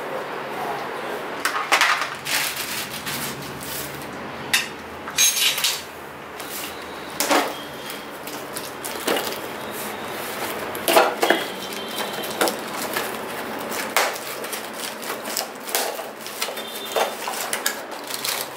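Small cardboard box being jabbed and prised open with a screwdriver: irregular sharp clicks, knocks and short scraping, tearing sounds of the steel blade against cardboard and packing tape.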